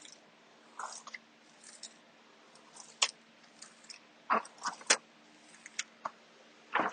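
Squeegee rubbing over a vinyl wall decal during application: a scattering of brief scrapes and taps, several close together about four seconds in.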